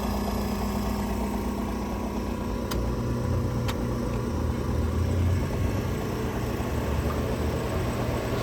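1959 Welbilt Wall-Slim 2-horsepower heat pump running: a steady mechanical hum from its compressor and fan motor, with two faint ticks a few seconds in.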